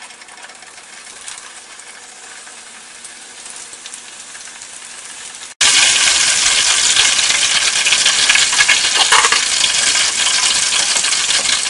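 Wontons deep-frying in hot oil in a saucepan. At first it is a moderate sizzle of a scrap of wrapper bubbling in the heating oil; about halfway through it jumps to a loud, dense sizzle of a full batch of wontons frying.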